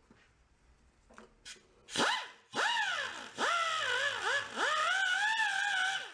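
Small handheld electric rotary tool cleaning rust off the ignition coil's contact surfaces on a lawn mower engine. About two seconds in its motor whines up, then runs in several spurts, its pitch sagging and recovering as it is pressed against the metal.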